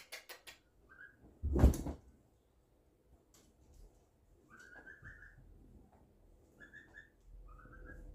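Wet laundry being handled and shaken out, with one loud flap about a second and a half in. A few short, high-pitched animal peeps come at intervals through the rest.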